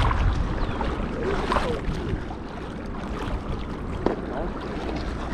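Steady rush of river water with wind rumbling on the microphone, and a couple of brief, faint voice fragments.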